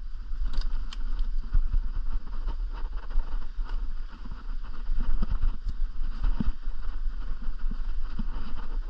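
Running water of a jungle stream with a steady low rumble from wind on the microphone and a few faint knocks.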